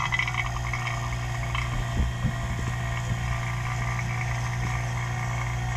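Hilmor HVAC vacuum pump running steadily just after being switched on, pulling a vacuum on its old oil, with a constant hum.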